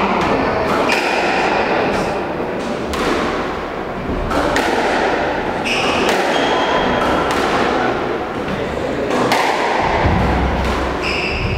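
Squash rally: the ball cracks off rackets and the walls, a sharp impact every second or so, with short high squeaks of court shoes on the wooden floor between the hits.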